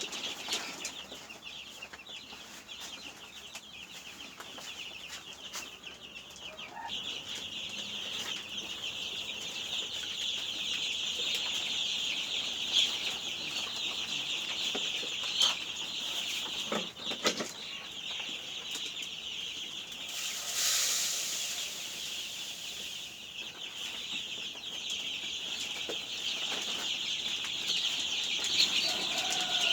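A flock of twelve-day-old chicks peeping continuously, with a few sharp knocks and a brief burst of rustling about two-thirds of the way through.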